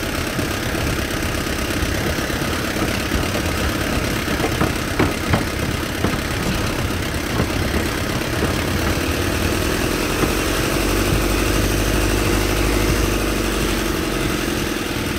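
Truck engine running as it drives slowly over a bumpy dirt track, with a few sharp knocks from the body jolting about five seconds in. From about ten seconds in the engine note gets louder and its pitch rises and falls.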